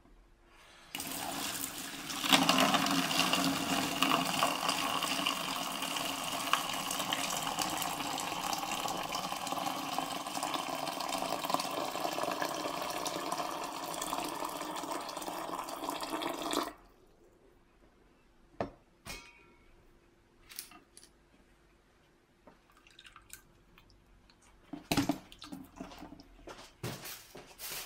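Water pouring in a steady stream into a clear plastic tub holding a Toyota 4A-GE throttle body, filling it to submerge the part and its idle speed control valve for cleaning. The pour starts about a second in, grows stronger soon after and cuts off suddenly about two-thirds of the way through. A few light knocks follow near the end.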